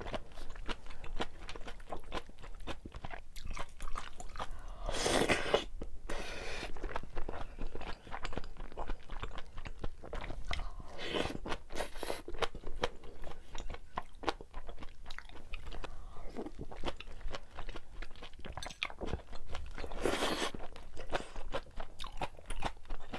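Close-miked eating: chewing and biting with crunchy, wet mouth sounds, with a few longer, louder mouth noises about five, eleven and twenty seconds in.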